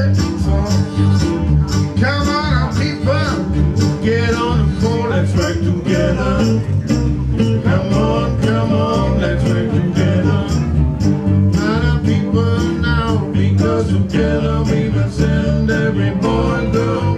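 Acoustic blues band playing live: strummed and picked acoustic guitars, with a man singing.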